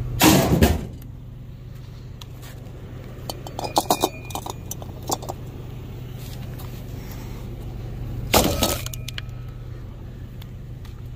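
Pickup truck engine idling steadily under a loud clatter of scrap metal tossed into the truck bed about half a second in, a few light metallic clinks around four seconds in, and a second clatter of metal landing in the bed a little past eight seconds.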